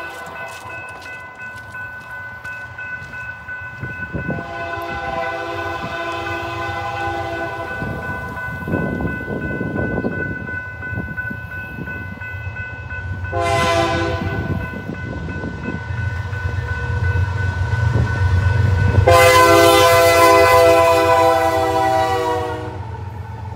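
Grade-crossing bell ringing steadily while an approaching freight train's diesel locomotive sounds its multi-note air horn for the crossing: a long blast about four seconds in, a short one midway, and a long, loudest blast in the last few seconds as the locomotives reach the crossing. A low diesel rumble builds under the last two blasts.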